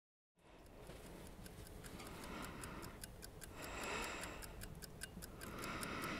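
A clock ticking steadily, several ticks a second. Soft rushes of noise rise and fall under it every second or two.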